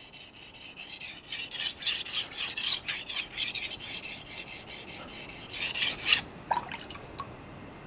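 Steel blade of a 210 mm gyuto chef's knife scraping back and forth on a coarse whetstone in quick, even strokes, a few a second, while the tip section of the secondary bevel is sharpened to raise a burr. The strokes stop about six seconds in.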